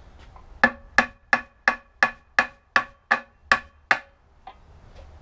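About ten quick hammer blows, roughly three a second, on the stuck 12A rotary engine, each with a short metallic ring, knocking a seized part of the engine free.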